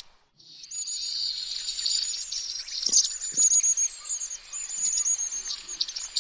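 Long-tailed tit calling: a rapid, continuous run of thin, very high, arched notes, starting after a brief gap at the very beginning.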